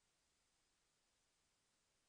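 Near silence: a faint steady hiss.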